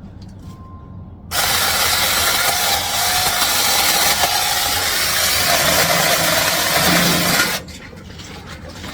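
Small battery-powered chainsaw starting about a second in and running for about six seconds as it cuts through small branches, then stopping abruptly.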